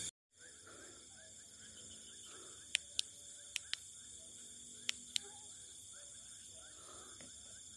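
Faint night chorus of crickets and other insects: a steady high-pitched trilling, with faint short chirps under it and about six sharp clicks in the middle. The sound drops out briefly at the very start.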